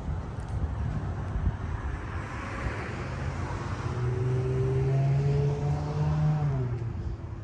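Motor vehicle engine running over a low rumble. Its hum slowly rises in pitch from about three seconds in, then drops away at about six and a half seconds.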